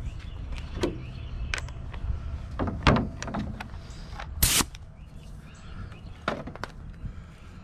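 Workshop knocks and clicks as wooden drawer parts are handled, with a brad nailer going off while the drawer is nailed together; one short sharp hissing burst stands out midway through.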